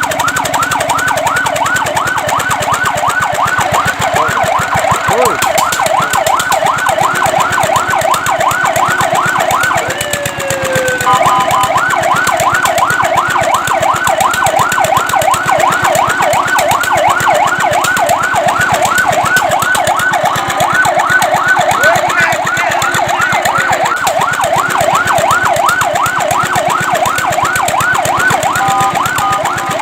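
Fire truck siren sounding a fast yelp, its pitch sweeping up and down a few times a second. About ten seconds in, it breaks briefly into a falling sweep and a short steady tone before the yelp resumes.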